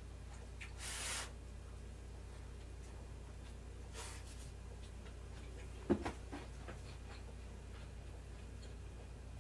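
Quiet eating at a table: two short breaths, then a brief clatter of wooden chopsticks against a rice bowl about six seconds in, followed by a few faint ticks, over a low steady hum.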